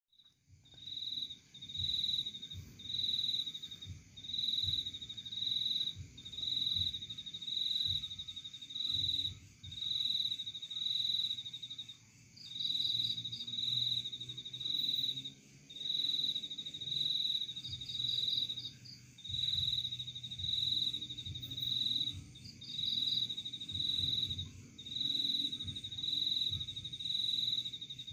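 Insects chirping: a high, pulsed trill that repeats about once a second, with fainter, higher chirps now and then above it.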